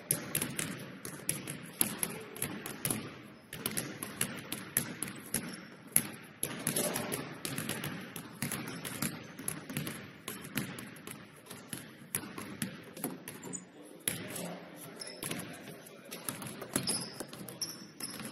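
Several basketballs bouncing on a hardwood gym floor as players dribble and shoot, giving a rapid, irregular patter of sharp bounces that echo in the large hall.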